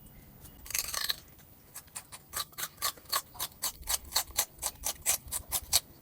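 Close-up crunching of a crisp raw vegetable: one loud crunch about a second in, then fast, regular crisp chewing crunches, about five a second.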